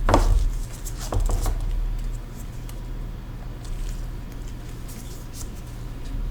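Handling noise at a repair bench: a low bump on the work surface at the start, then a few light clicks and taps from small tools and parts, with scattered faint ticks, over a steady low hum.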